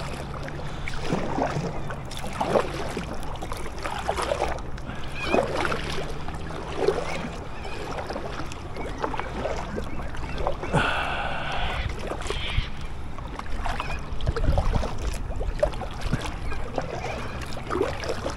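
Fishing kayak moving through water, with repeated short water strokes about every second. A brief higher-pitched rasp comes about two-thirds of the way through.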